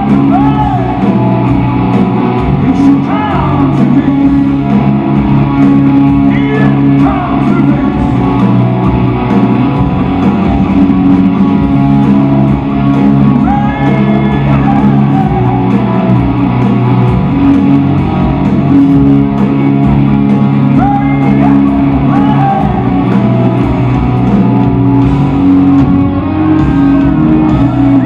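Rock band playing live in a large hall: electric guitars and a male lead vocal singing, loud and continuous, heard from among the audience.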